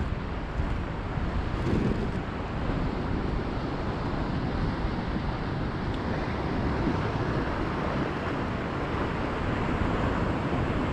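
Steady wind noise on the microphone over ocean water lapping, with no separate events standing out.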